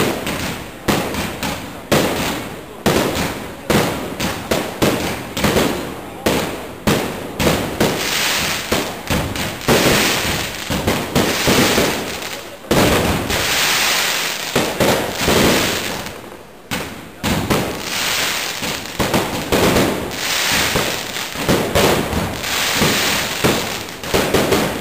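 Fireworks display: a dense, continuous run of aerial shell bangs, with stretches of hissing and crackling between them.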